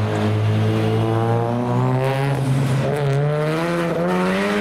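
Nissan Silvia S15's engine and exhaust accelerating hard as the car pulls away. The engine note climbs, drops back a little over two seconds in as it shifts up a gear, then climbs again.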